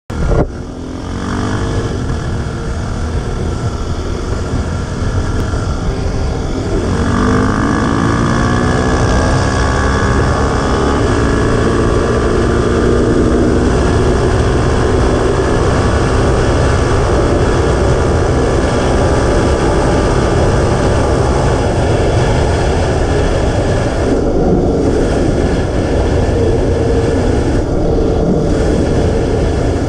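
Yamaha Raptor 700 quad's single-cylinder four-stroke engine accelerating hard, its pitch climbing several times as it shifts up through the gears, then running steadily at speed over wind noise on the microphone. In the last several seconds it eases off.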